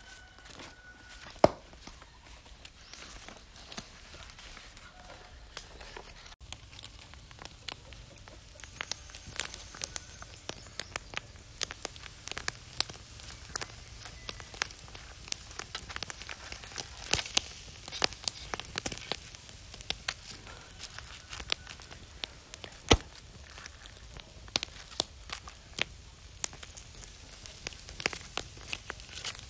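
Small wood fire crackling and popping in a metal fire pan, with eggs roasting in the embers; the sharp pops come thick and fast from about eight seconds in. Before that it is quieter, with one sharp click about a second and a half in.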